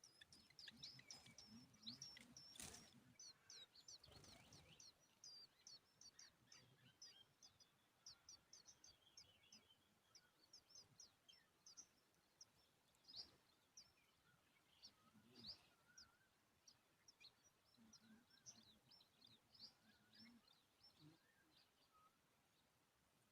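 Tailorbird chirping faintly: many short, high-pitched notes in quick runs, thinning out in the second half.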